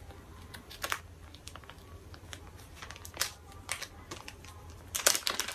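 Small clear plastic bag crinkling and crackling as fingers work foam microphone windscreens out of it, in scattered short crackles that grow busier near the end.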